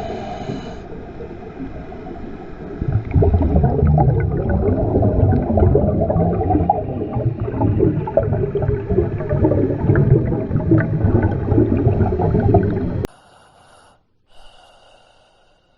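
Dark, rumbling underwater-style sound-effect ambience, with dense gurgling and breath-like noises that grow louder about three seconds in. It cuts off suddenly near the end, leaving only a few faint high tones.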